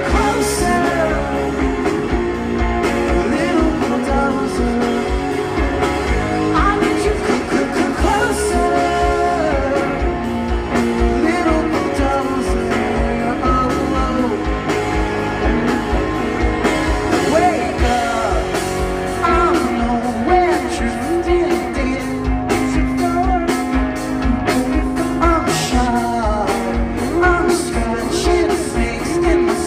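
Rock band playing a song live, a man singing lead over electric guitars, bass and a regular drum beat.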